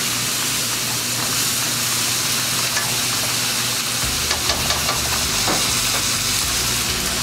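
Chicken pieces with chopped onion, carrot and bell pepper sizzling steadily in a hot pan while being stirred.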